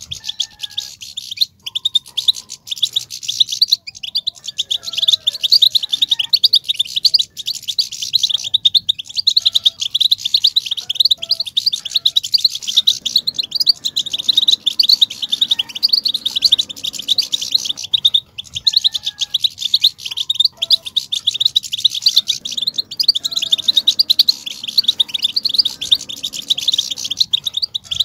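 European goldfinch song: a continuous, rapid twittering and trilling chatter, the 'batbata' song used to stir male goldfinches into singing.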